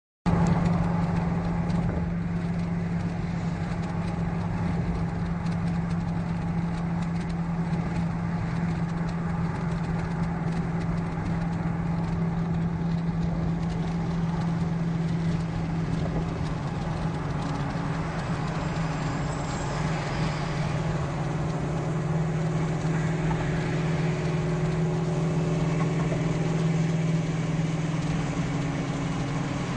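A car cruising at highway speed, heard from inside its cabin: a steady low engine drone over road and tyre noise.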